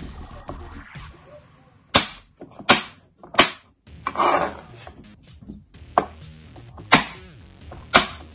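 Kitchen knife chopping baby corn on a plastic chopping board: sharp knocks as the blade cuts through and hits the board, three in quick succession, a pause, then three more about a second apart.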